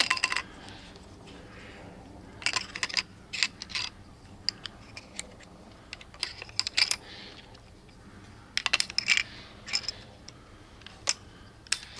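Clicks and rattles of crossbow bolts being loaded one after another into a Siege crossbow, coming in short clusters every second or two.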